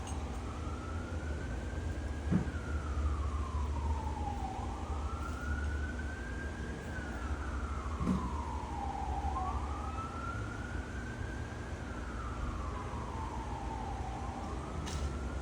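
An emergency vehicle's siren in a slow wail, rising and falling about every five seconds, three times over, above a steady low hum. Two dull knocks come through, one a couple of seconds in and one near the middle.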